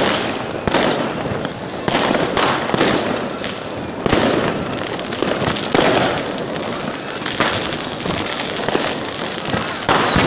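Firecrackers and a ground firework going off close by: a near-continuous crackle of sharp pops and cracks, with louder bangs every second or two.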